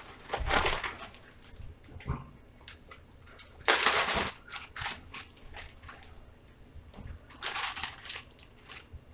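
Plastic bag crinkling and rustling as chicken wings are shaken in flour inside it to coat them, in three loud bursts about half a second in, around four seconds in and near the end, with softer rustles between.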